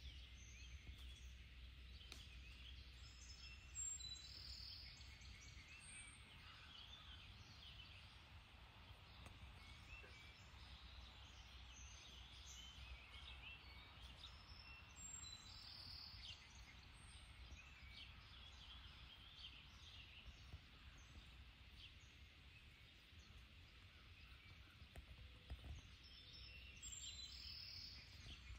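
Faint outdoor ambience: distant birds chirping and calling here and there over a low steady hum.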